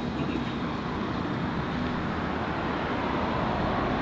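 Steady rumble of vehicle engines and street traffic, with no distinct events.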